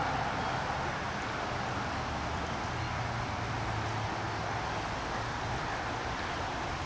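Steady rushing of a creek running at high water, with a low hum beneath.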